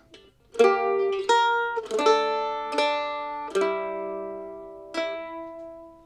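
Mandolin played with a pick: a slow phrase of about seven plucked notes and two-string double stops, each left to ring and fade, the last one about five seconds in, dying away.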